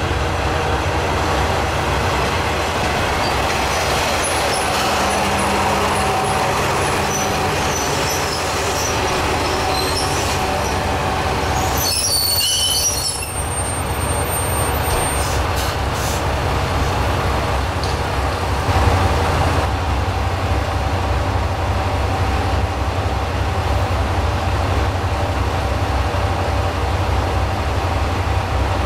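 A Kanto Railway Joso Line diesel railcar arriving, with high brake and wheel squeal as it slows, loudest about halfway through. After a break, diesel railcars idle at the platform with a steady low engine hum.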